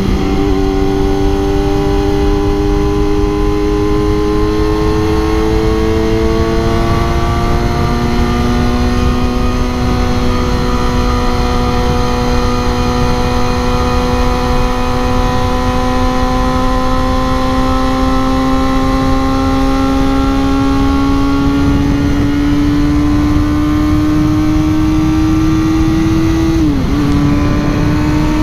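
Sport motorcycle engine pulling steadily as the bike rides at highway speed, its pitch climbing slowly as it gathers speed, then dipping sharply for a moment near the end as it shifts up a gear. Heavy wind rush over the microphone underneath.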